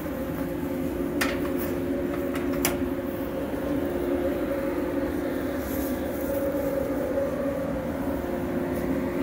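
Grain-bin aeration fan on a corn bin running with a steady hum of two held tones, blowing air through the stored corn to keep it cool so it doesn't heat up. Two brief clicks sound in the first three seconds.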